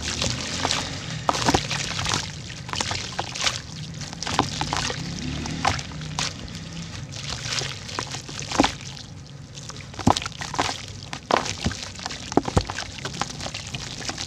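Cylinders of dried red dirt crumbling in water: a dense run of crackles and sharp pops as they break apart, with sloshing and small splashes of falling pieces.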